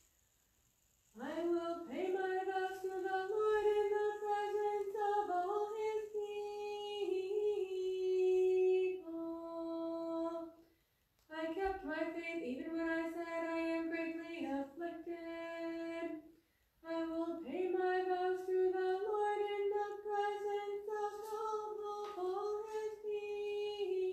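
A single unaccompanied voice chanting an Orthodox liturgical hymn in long, held notes, in three phrases with short breaths between them. It begins about a second in, after near silence.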